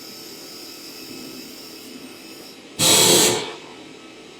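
Handheld laser welder firing briefly on aluminium: a short, loud hissing burst about three seconds in, over the steady hum of the welding machine.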